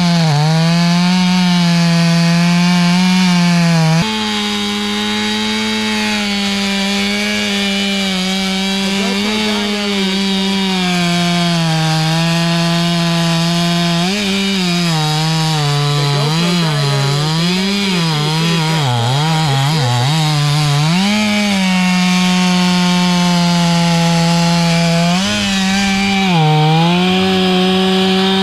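Stihl 500i fuel-injected two-stroke chainsaw running wide open as it cuts through a big oak. Its pitch sags and recovers as the chain loads up in the wood, dipping repeatedly and deepest in a long stretch past the middle, then climbs back to full speed.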